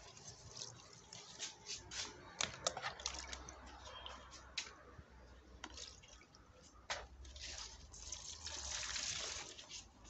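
Liquid poured from a plastic bucket onto the soil of potted plants, faint, with scattered small clicks and knocks from handling; the pouring is loudest about eight to nine and a half seconds in.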